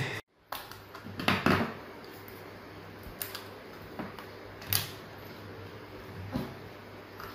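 Plastic casing of a Dell laptop battery pack being pried open along its seam with a thin tool: scattered clicks and snaps, the loudest about a second and a half in and again near five seconds in, over a steady low hum.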